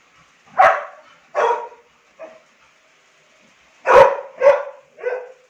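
A spitz-type dog barking: two barks, then after a pause three more in quick succession near the end.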